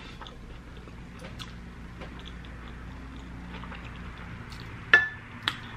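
A person chewing Hot Cheeto-covered loaded fries close to the microphone, with small wet mouth clicks. Two sharper clicks come about five seconds in.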